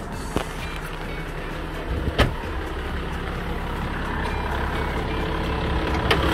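Toyota Land Cruiser VX Turbo's 4.2-litre straight-six turbo-diesel idling steadily and smoothly, getting a little louder near the end. Two sharp clicks cut in, about half a second and two seconds in.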